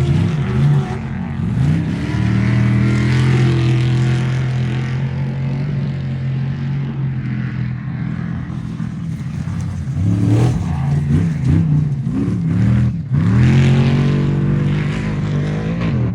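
Off-road race truck engine revving hard: the pitch sweeps up and down with the throttle, holds high and steady for several seconds, then rises and falls again. The sound drops out for an instant about 13 seconds in, then comes back at full revs.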